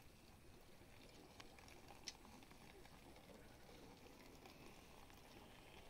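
Near silence: faint background noise with a couple of soft clicks in the first half.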